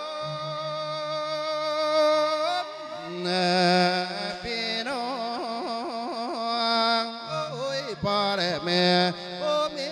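A monk's voice through a microphone singing an Isan-style thet lae sermon, one long melodic line without clear words. It holds long wavering notes, and about five seconds in it breaks into a run of quick, even pitch wobbles.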